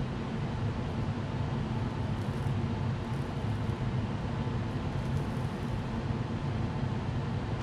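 A steady low hum with a hiss above it, unchanging and without distinct clicks or knocks: continuous background machine noise.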